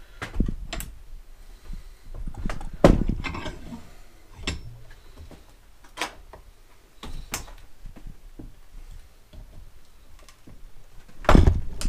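Metal hand tools and bicycle hub parts clattering and knocking on a workbench during work on a rear wheel's cassette and freehub body. A string of irregular knocks, the loudest about three seconds in and again near the end.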